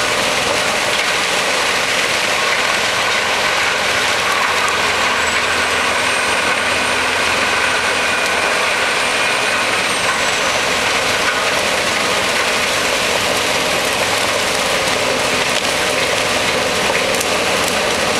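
CBI 5800 wood grinder driven by the Scania R620's V8 truck engine, running steadily under load as it grinds forestry slash and branches fed in by a crane grapple.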